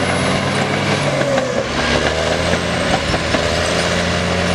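Caterpillar crawler bulldozer's diesel engine running steadily under load as the dozer pushes dirt with its blade.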